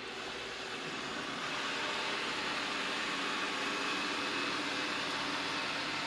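Cecotec Conga Excellence 990 robot vacuum running, its suction fan and brushes giving a steady whirring hum that swells slightly over the first two seconds, then holds steady.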